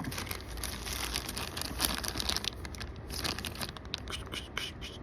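Packaging crinkling and tearing as the parts of a motorized bicycle kit are unwrapped by hand, with many quick irregular crackles.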